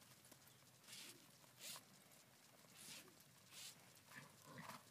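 Faint, brief hissy swishes, four of them in two pairs, from a horse loping in a soft dirt arena while its rider swings a rope loop.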